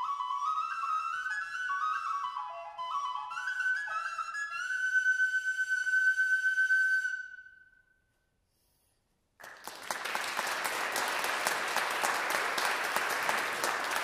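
A tin whistle playing the closing phrases of an Irish reel, quick stepping notes that end on one long held high note, which fades out about eight seconds in. After a short silence, an audience applauds.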